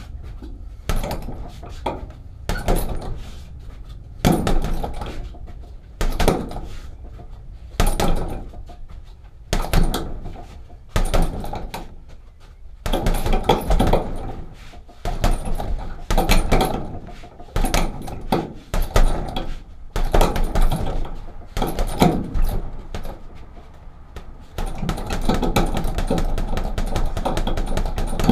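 Punches thudding into a heavy punching bag, one hit every second or two.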